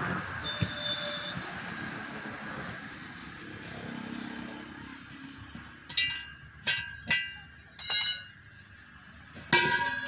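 Four sharp metallic clinks, each with a short ringing tone, in the second half, from the steel parts of a truck wheel being handled, over steady road-traffic noise. A loud pitched, horn-like sound starts near the end.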